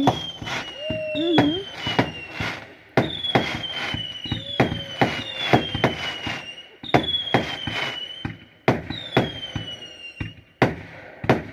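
Fireworks barrage firing shot after shot: a rapid run of bangs and crackles, with about seven whistles that each fall in pitch as they go.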